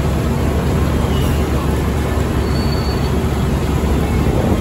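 Steady low rumble of city street traffic, possibly with a train on the elevated rail line mixed in, without any clear single event standing out.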